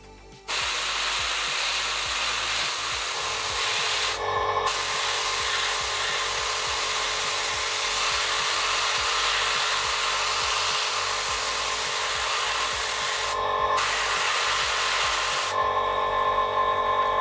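Airbrush spraying thinned paint: a loud, steady hiss of air, broken briefly twice. Near the end the spray hiss drops away, leaving a steadier sound with a hum-like tone.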